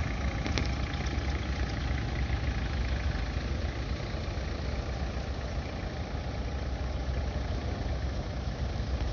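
Large diesel truck engine idling steadily, a low, even engine sound.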